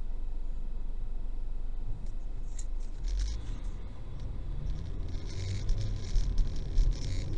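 Car cabin as picked up by a dash cam: a steady low engine and road rumble as the car drives off and gathers speed, with scattered clicks and rustling starting about three seconds in and getting busier near the end.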